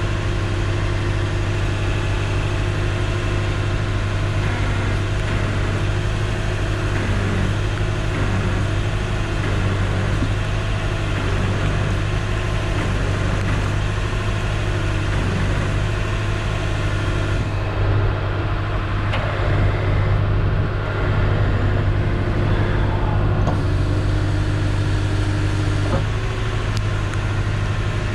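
Truck engine idling steadily, a constant low hum with no change in speed.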